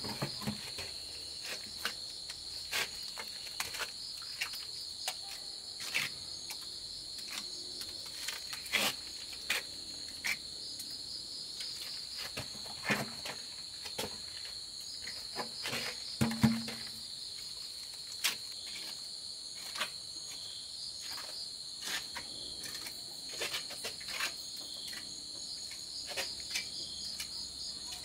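Crickets trilling steadily at a high pitch, with scattered short knocks and scrapes from a trowel and a plastic bucket as wet cement mortar is tipped out and spread.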